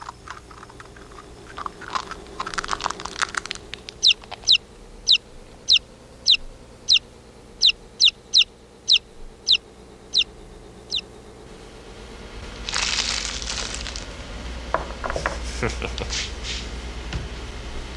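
Newly hatched chick peeping: a string of about fourteen short, high peeps, each sliding down in pitch, from about four to eleven seconds in. Brief scratchy rustles come before and after, with a short hiss after the peeps stop.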